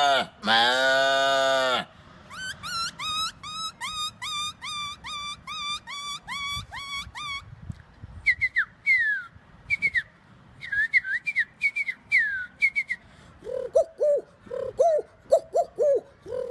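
A man imitating animal and bird calls with his voice: a loud drawn-out call that ends about two seconds in, then a fast run of repeated whistled bird-like calls, then a series of falling chirps, and near the end a run of lower, evenly repeated calls.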